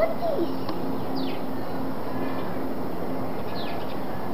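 Steady outdoor background noise, with a faint low hum that comes and goes and a couple of brief, high, falling bird chirps, about a second in and again near the end.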